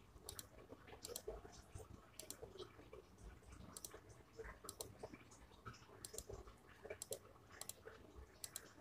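Faint, sharp clicks at an uneven pace of about one a second, one for each key pressed as digits are typed on a phone's on-screen keyboard; otherwise near silence.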